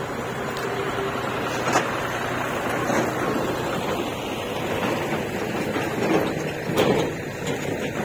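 JCB backhoe loader's diesel engine running steadily as the backhoe arm swings down and digs into stony soil, with a brief sharp knock about two seconds in and another near the end as the bucket strikes the ground.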